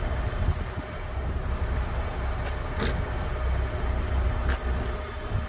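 Low, steady rumble of a car engine idling, with a couple of light clicks about three and four and a half seconds in.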